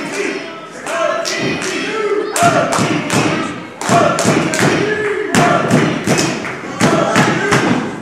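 Repeated thuds in a wrestling ring, several a second from a couple of seconds in, over spectators' shouting voices.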